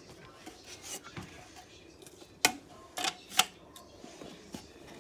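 Plastic grille cover of a 1970s Email exhaust fan being clipped onto the fan's housing: three sharp clicks and knocks within about a second, a little past halfway, with light handling noise.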